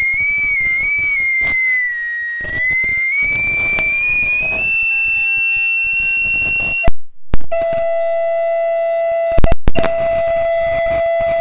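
Audio feedback squeal: a loud high whine that wobbles and slowly slides up in pitch, then cuts off suddenly about seven seconds in with two loud pops. A steady lower-pitched tone takes over, broken by another quick burst of pops about two seconds later.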